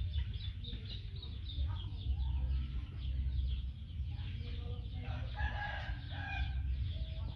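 Birds calling, with a louder run of lower calls about five seconds in, over a steady low rumble.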